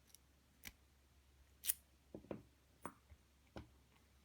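Sharp, small metal clicks and taps, about six of them at uneven intervals, from a screwdriver and blank key working at an Assa cam lock's retaining clip.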